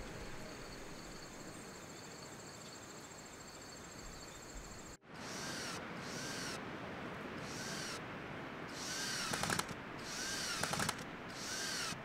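A hand saw cutting a pine plank: six back-and-forth strokes about a second apart, each with a rising-and-falling squeal from the blade. Before them there is only a steady quiet background.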